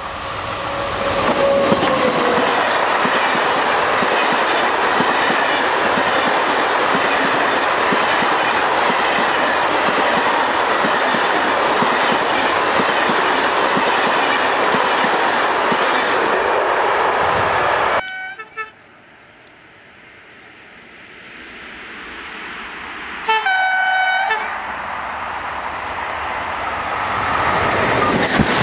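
SNCF electric locomotive sounding its horn as it comes up, the note bending down as it passes, then the Téoz coaches running past with wheels clattering on the rails. About two-thirds of the way in the sound cuts off suddenly to quiet, a short horn-like tone sounds, and the noise of another train builds as it approaches.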